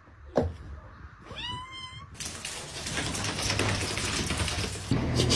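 A soft thump, then about a second and a half in a cat meows once, the call rising and then holding level.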